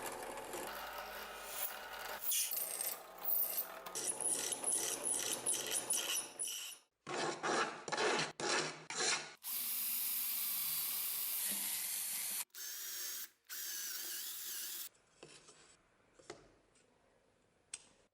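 A series of short, abruptly cut workshop clips. First come repeated rasping and rubbing strokes, then about three seconds of a steady power tool running from roughly nine seconds in, then a few brief pieces that fade to faint scraping near the end.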